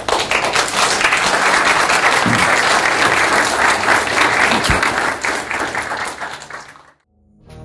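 Audience applauding with dense, steady clapping that fades out near the end.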